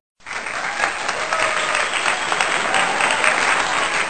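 Recorded applause, many hands clapping densely and steadily, set over a subscribe end screen. It starts suddenly after a brief moment of silence.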